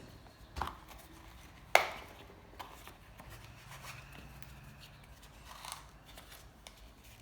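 Tools and packaging being handled on a hard surface: a knock, then a sharper, louder one about a second later, followed by faint rustling and a few light clicks.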